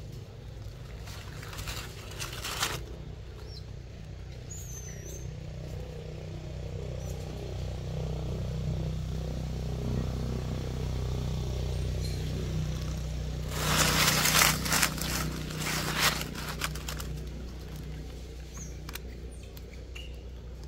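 Dry leaf litter rustling and crunching in two spells, briefly about two seconds in and louder about fourteen to sixteen seconds in, over a steady low engine hum that swells in the middle and fades again.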